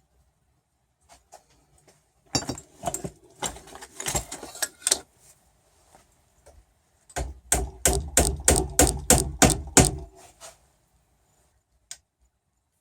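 Glued wooden dowel plugs being tapped into holes in a wooden tiller: a few irregular knocks, then a run of about ten quick, even taps, three or four a second.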